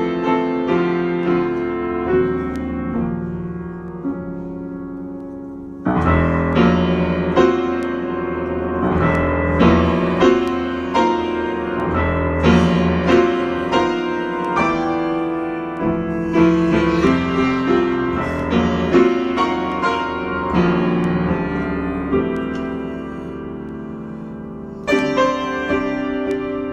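Solo piano improvisation: struck chords and melody notes that ring and fade away. It dies down to a quieter held chord, then a loud new chord comes in about six seconds in and another near the end.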